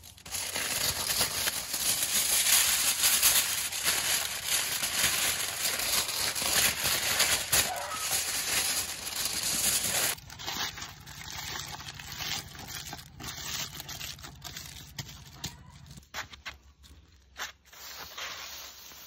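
Aluminium foil crinkling and rustling as it is handled and folded around a bundle by hand: dense and loud for about the first ten seconds, then softer and patchier with scattered crackles and clicks.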